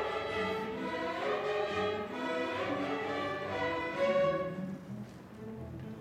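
String orchestra of violins and cellos playing a waltz, bowed notes moving in several voices. A loud note around four seconds in, then the playing drops much quieter.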